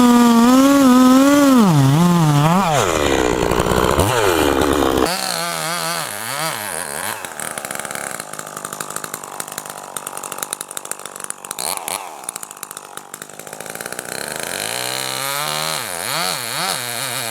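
Chainsaw running hard in a cut, its engine note wavering and sagging under load for the first few seconds. After a sudden drop in level about five seconds in, it runs quieter and is revved up and down several times.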